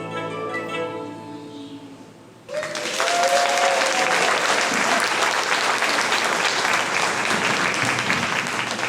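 The last notes of a song with instrumental accompaniment die away over the first two seconds, then an audience breaks into loud, steady applause about two and a half seconds in.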